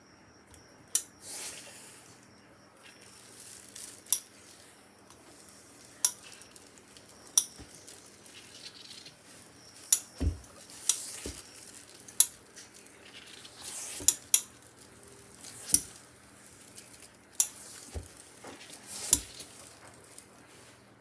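A hose-fed steam iron being pressed along fabric seams on a padded table and set down and picked up again: irregular sharp knocks and clinks every second or two, some followed by brief hisses of steam.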